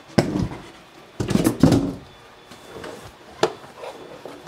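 Empty cardboard shipping box being handled and moved aside: a bump, then a louder burst of cardboard thuds and rustling about a second and a half in, with a single sharp knock later as the printer's base is picked up.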